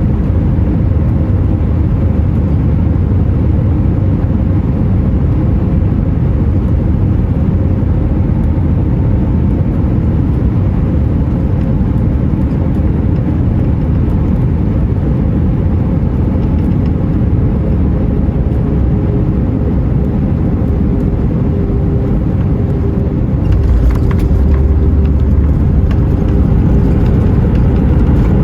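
Airbus A319 engine and airflow noise heard inside the cabin: a steady, loud rumble with a faint steady hum, growing louder and deeper about 23 seconds in.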